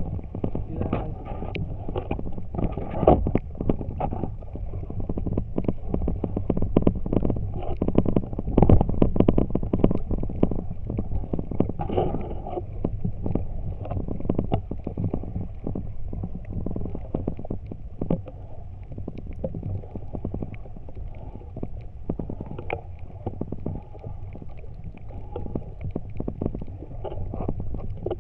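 Muffled underwater noise picked up by a submerged camera: low rumbling water movement with many small clicks and knocks scattered through it.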